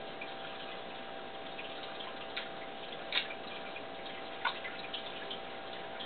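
Steady hiss and faint electrical hum with scattered small clicks, two of them louder about three and four and a half seconds in.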